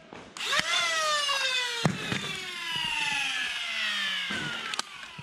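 Foam blaster's flywheel motors whining up suddenly, then coasting down as the pitch falls steadily over about four seconds. A few sharp knocks sound along the way.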